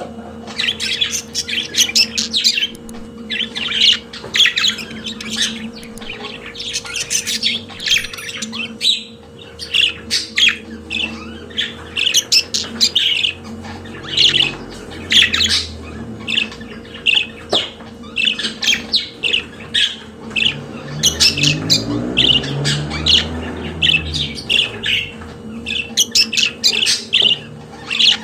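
Budgerigars singing: a continuous chattering warble of quick, short calls packed closely together, the budgie song used to train pet budgies. A faint steady hum runs underneath.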